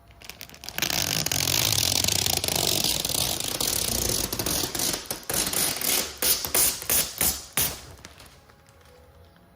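Dense mechanical clicking and rattling for several seconds, breaking up near the end into a quick run of separate sharp clicks before stopping.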